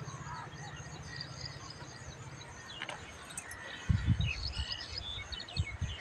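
Small birds chirping in the background, with brief low rumbles about four seconds in and again near the end.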